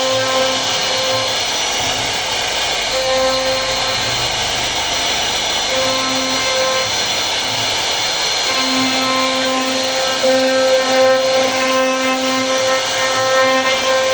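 CNC router spindle cutting wood: a steady loud machine noise, with a lower hum that starts and stops as the machine moves, more steadily in the last few seconds.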